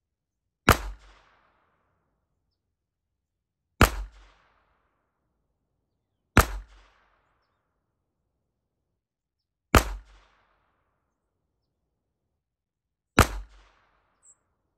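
Five single shots from a Ruger Mark IV Hunter .22 LR pistol firing CCI Mini-Mag rounds, fired slowly about three seconds apart, each a sharp crack with a short ringing tail.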